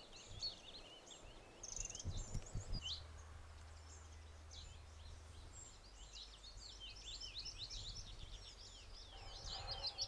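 Small songbirds chirping and singing in the background, short high notes scattered through, growing busier from about halfway, over a faint low rumble.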